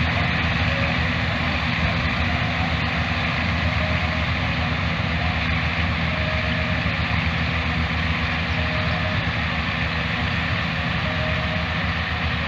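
Combine harvester running steadily: a low, even engine drone with a constant mechanical noise over it.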